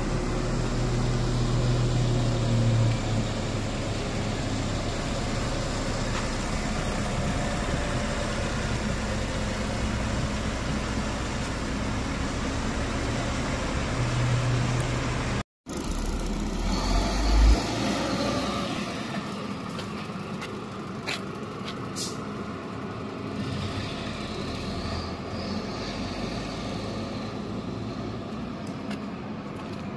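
A Shacman heavy-duty truck's diesel engine running steadily. After an abrupt cut about halfway there is a brief louder rumble, then the truck runs more faintly at a distance.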